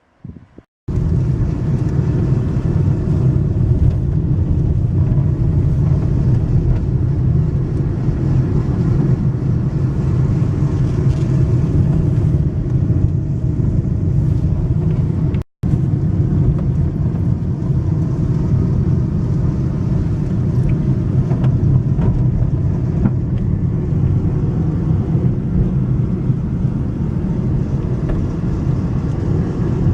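Car driving: a steady rumble of engine and road noise, broken by a split-second gap about halfway through.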